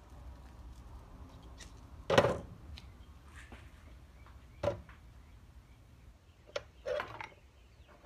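Four short knocks and clatters of hand tools and heavy battery cable being handled on a workbench, the loudest about two seconds in.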